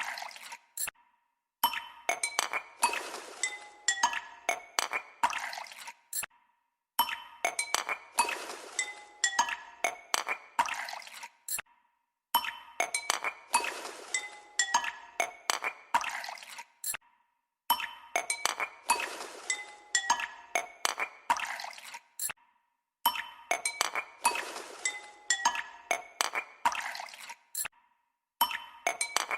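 Background music: a short phrase of bright, tinkling notes that repeats about every five seconds, with a brief gap between repeats.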